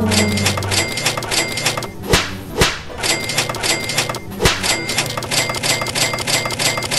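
Fast, even electronic beat with short high beeping notes repeating in a pattern over it. Three sharp knocks cut through it: about two seconds in, half a second later, and again a little after four seconds.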